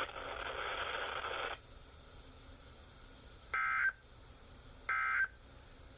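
NOAA Weather Radio broadcast hiss that cuts off about a second and a half in, followed by two short digital data bursts about 1.3 seconds apart. These are the SAME end-of-message (EOM) tones that close the required weekly EAS test.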